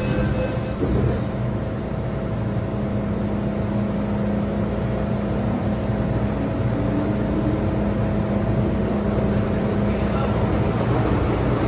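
Steady interior hum of an MTR M-train standing with its doors closed, its air-conditioning and on-board equipment running, with a few steady tones over a dull rumble. Near the end the sound shifts and the low rumble grows.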